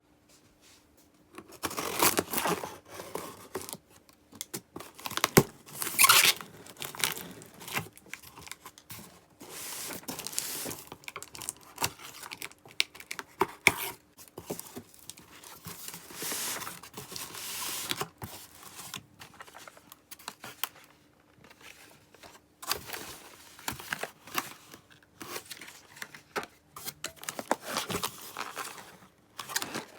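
Packaging being torn open and crinkled by hand, in irregular bursts of ripping and rustling with short pauses between, over a faint steady hum.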